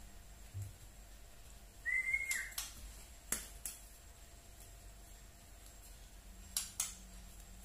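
Young (trotol) white-rumped shama giving its 'tretekan' call: one short whistled note that rises and falls about two seconds in, among half a dozen sharp, spaced clicks.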